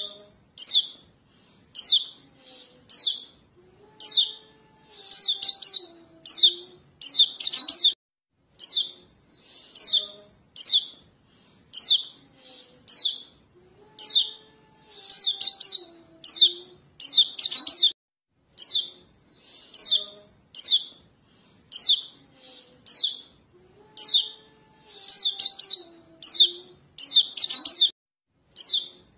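Juvenile yellow white-eye (kecial kuning) calling for its parents: short, high, falling chirps, one or two a second in uneven clusters, in a pattern that repeats about every ten seconds. It is a begging call, used as a lure (pikat) to draw adult white-eyes in.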